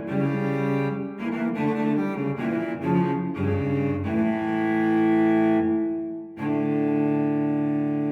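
Solo cello music: a quick run of bowed notes, then a long held note that fades about six seconds in, followed by a new sustained low chord.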